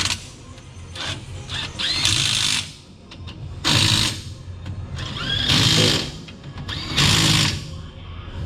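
A handheld power tool running in four short bursts of about half a second each, each starting with a quick rising whine, over background music.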